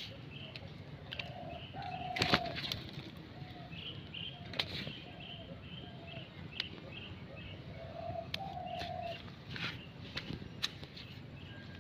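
Birds calling: a dove coos in low, repeated notes while another bird chirps in a steady series of short, high notes. A few sharp clicks are scattered through.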